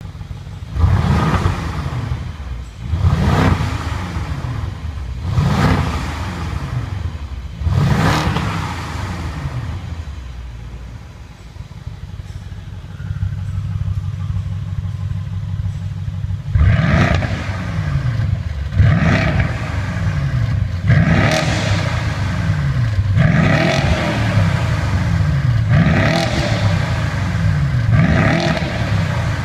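BMW F10 550i twin-turbo V8 free-revving through a Fi Exhaust valved catback with catless downpipe, valves open. Four quick blips each climb and drop back, then the engine settles to idle for a few seconds. After that comes a run of revs about every two seconds.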